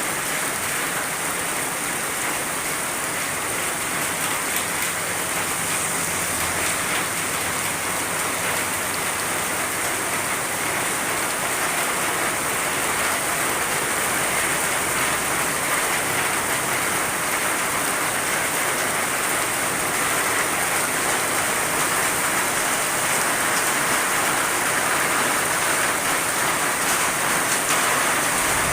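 Heavy rain pouring steadily, a dense even hiss of downpour that grows slightly heavier toward the end.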